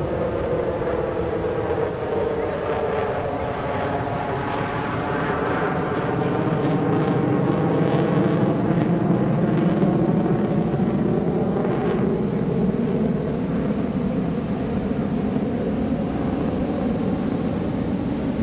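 F-16 fighter jet engine noise as the jet flies past and climbs away. A continuous rushing sound with a slowly shifting, phasing quality that swells to its loudest a little past the middle and eases slightly near the end.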